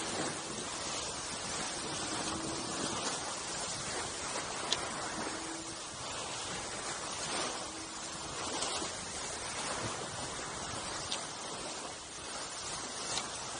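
Steady rush of water and wind as a Seascape 18 sailboat sails fast, its bow wave hissing along the hull. A faint low hum comes and goes a few times, with a few faint ticks.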